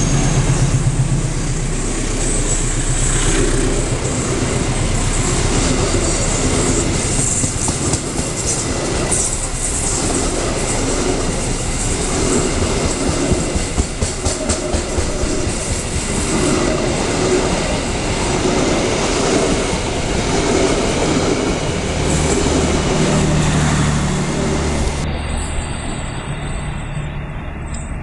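Passenger train passing close by: the diesel locomotive's engine rumbles at the start, then a long string of coaches clatters past with rhythmic wheel noise over the rail joints. The sound eases off a little near the end as the last coach moves away.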